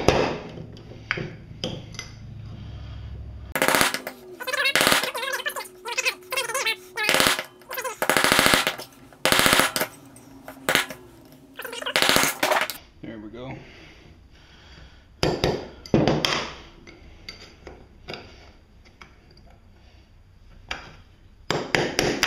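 Brass hammer striking a steel punch to drive the rear ball bearing out of a Grasshopper 721D alternator housing: a rapid run of metal taps, densest in the first half, then a few separate strikes near the end.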